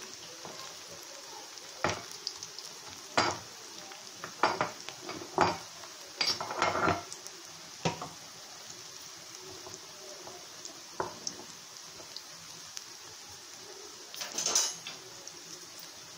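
Pakoda batter deep-frying in hot oil in a kadai, a steady sizzle, with several sharp clinks and knocks of metal kitchenware at irregular intervals.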